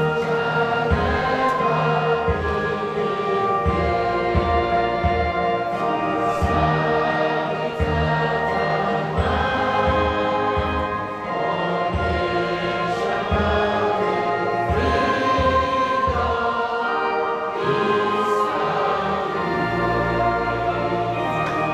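A large group singing together over instrumental backing with a regular low beat.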